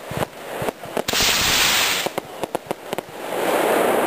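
Black-powder firework rockets being test-fired: a sharp hissing rush about a second in that lasts about a second, then a lower rushing sound that builds near the end, with scattered sharp crackles and pops throughout.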